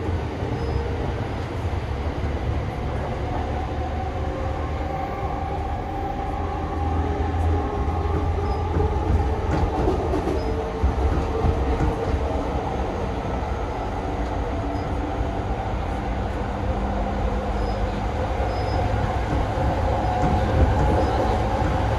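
Running sound inside a JR E231-500 series electric motor car: its Mitsubishi IGBT VVVF inverter and traction motors hum with a few steady tones over the low rumble of wheels on rail.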